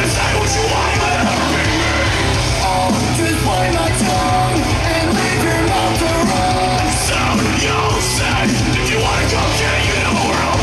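Loud hard-rock music with shouted, sung vocals and a heavy steady bass, played over the venue's speakers as a wrestler's entrance theme.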